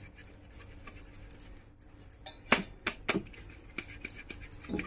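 Dry henna powder being rubbed by hand through a plastic mesh sieve over a steel bowl: a faint, steady scratching, with a few sharp clinks from about two and a half to three seconds in and another near the end.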